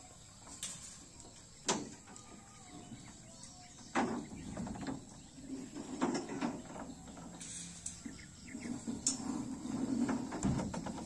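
A young village cow grazing, tearing and chewing grass in uneven bursts, with two sharp knocks, the louder about four seconds in.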